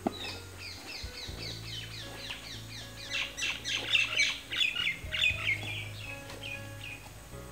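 A songbird calling: a rapid run of short, falling chirps, several a second, growing louder in the middle before it trails off near the end, over a steady low hum.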